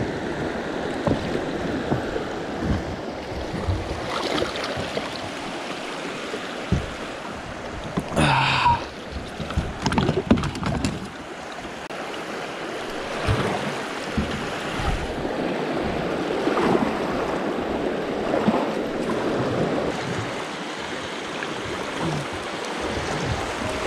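Shallow river water rushing over rocks, with a kayak paddle dipping and splashing and occasional knocks against the hull. A cluster of louder splashes and knocks comes about a third of the way in.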